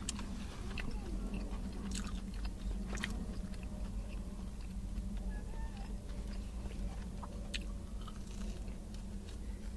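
Chewing and biting into a crispy-battered cheese corn dog, with scattered small crunches and clicks over a steady low hum.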